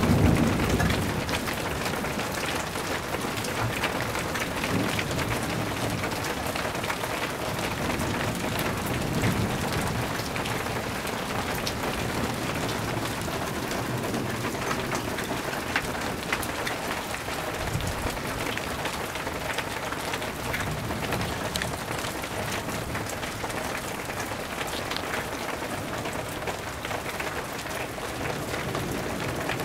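Steady rain falling during a thunderstorm, with a low rumble of thunder dying away in the first second or so.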